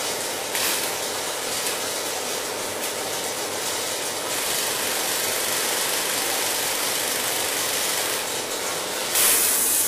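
Industrial pants sewing machine running steadily, with a loud burst of hiss near the end.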